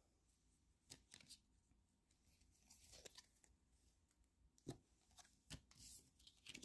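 Faint, scattered clicks and rustles of Pokémon trading cards and their foil booster-pack wrappers being handled and set down.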